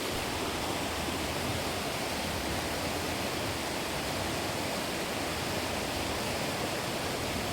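Steady rush of running water, an even, unbroken noise with no individual splashes.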